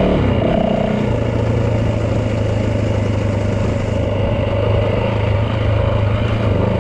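Yamaha dirt bike engine running while riding, its pitch shifting in the first second and then holding steady.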